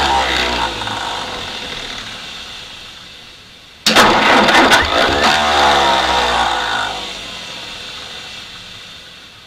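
Starter cranking the 1952 M38A1 Jeep's F-head four-cylinder engine twice on a weak battery without it catching. The first try is already going and dies away over a few seconds. The second starts abruptly about four seconds in and slows and fades as the battery gives out.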